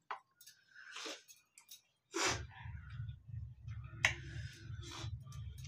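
Eating sounds from people eating rice and curry by hand: scattered short mouth clicks and smacks of chewing, with breaths through the nose. About two seconds in a steady low hum sets in under them.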